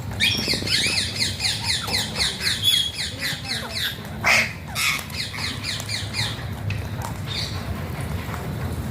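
Alexandrine parakeet calling: a fast run of repeated squawking notes, about five a second, then two louder harsh squawks, then another short run of notes before it falls quiet.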